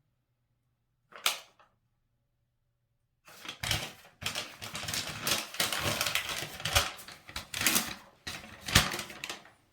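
Crinkling and rustling of a paper instruction sheet being handled and unfolded: one short rustle about a second in, then a dense run of crackles and clicks from about three seconds in until near the end.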